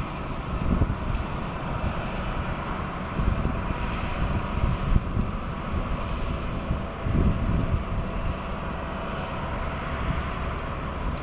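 Boeing 767-300ER with General Electric CF6 engines running, giving a steady jet whine over a low rumble that swells and fades, as the aircraft is pushed back by a tug.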